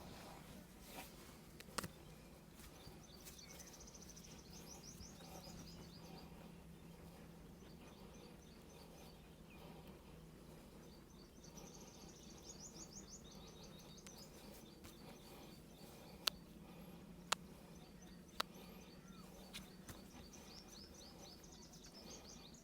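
Faint birds chirping in three short trilling runs over a steady low hum, with a few sharp clicks, the loudest of them about two seconds in and three close together past the middle.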